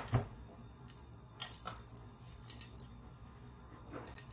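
Ghee heating in the bottom of a pressure cooker, giving scattered faint crackles and small pops as it warms. A knock sounds right at the start.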